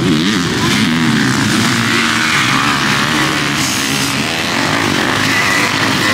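Several off-road dirt bike engines revving, their pitch rising and falling as the bikes ride through a dirt corner in a race pack.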